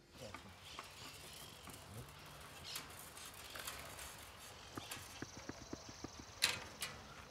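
Footsteps of two people pushing through dry undergrowth and leaf litter, with brush rustling and twigs crackling underfoot; the crackles come thicker in the second half, with one sharp snap near the end.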